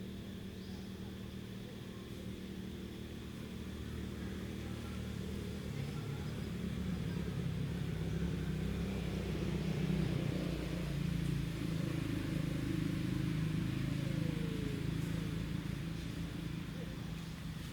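A motor engine running with a steady low hum that grows louder toward the middle and eases off near the end.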